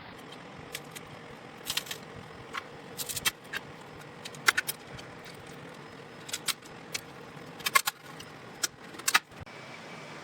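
Irregular sharp, light clicks and clinks, like small hard objects being handled, coming singly and in short clusters over a steady hiss.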